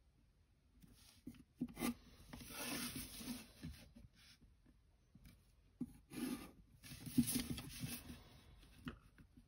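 Graphite pencil scratching along paper as lines are ruled against a plastic set square, mixed with the set square rubbing as it is slid into place. The scratching comes in two stretches of about two seconds each, with a few light knocks between.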